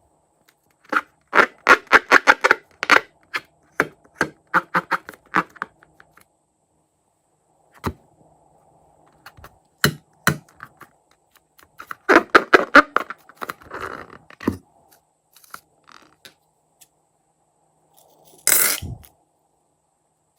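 Slime being pressed and squished, giving clusters of crackly popping clicks in several bursts, and near the end one short, louder squelch.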